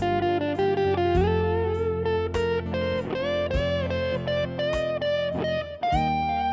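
Instrumental guitar background music: a guitar melody with bending, sliding notes over a steady beat.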